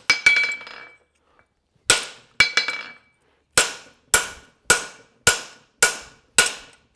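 Hammer striking a handled fuller set in the groove of a steel horseshoe on the anvil, cutting the fullering crease for the nail line. About ten sharp metallic strikes, each with a brief ringing tail; a pause of about a second near the start, then a steady beat of about two strikes a second.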